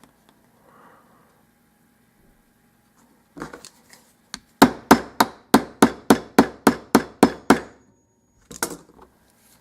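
Channel-lock pliers used as a hammer, striking a stuck roll pin in a euro cylinder lock to drive it out: a brief knock, then a quick run of about a dozen sharp metal taps at about four a second, then two more. The pin does not come out.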